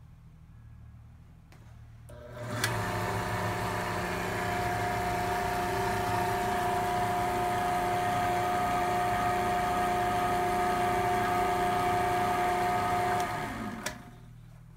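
Rock Rascal 6-inch trim saw with its side grinding stone, switched on with a click about two seconds in. Its motor spins up quickly, runs with a steady whine for about eleven seconds, then is switched off and winds down near the end.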